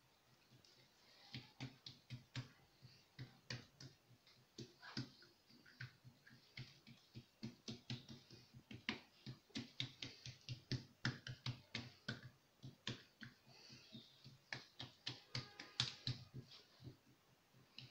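Oiled hands patting and pressing thin msemen dough out across a granite countertop: a run of small, quick sticky pats and clicks, several a second, starting about a second in.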